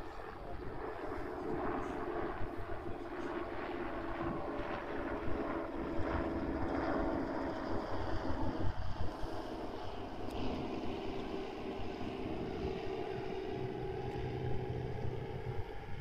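A steady engine drone, holding a near-constant pitch with slight drift.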